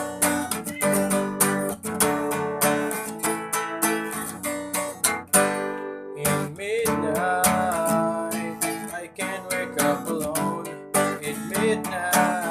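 Acoustic guitar strumming chords for a song's intro. The strumming breaks off briefly about six seconds in.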